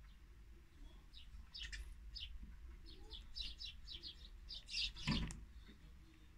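Small garden birds giving rapid, short, high chirps, followed by a single thump about five seconds in as a bird comes in to the peanut feeder.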